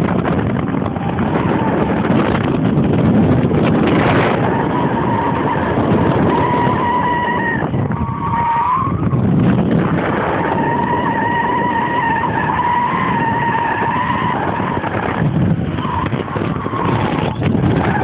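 A car running hard, with its tyres squealing in three long, steady skids of about four seconds each, over constant loud noise.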